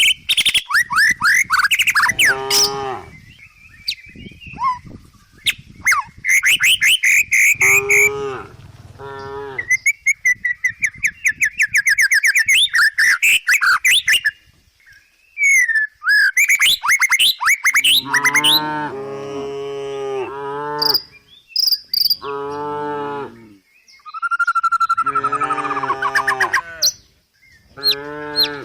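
Village cattle mooing repeatedly, mostly in the second half, with birds chirping and twittering throughout, loudest in the first half.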